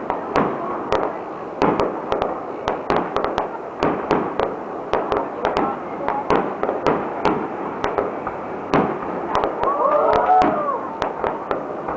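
Aerial fireworks display: a rapid barrage of shell bursts, several sharp bangs a second, over a continuous noisy background, with brief wavering pitched sounds about ten seconds in.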